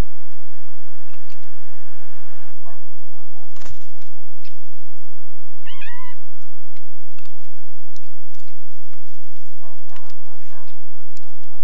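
A sharp knock about three and a half seconds in, then a short mewing call about two seconds later, one note rising and falling. Small clicks and taps come and go throughout.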